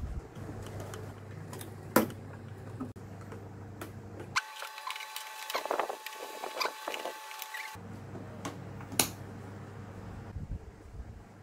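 Small clicks, taps and scraping of thin laser-cut wooden kit pieces being handled and pressed into place on a model house, with a sharper click about two seconds in and again about nine seconds in. A low steady hum runs underneath.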